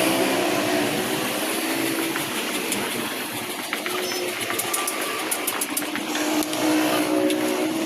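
Woodworking router machine running steadily, its motor tone shifting slightly in pitch as it cuts, with scattered light clicks.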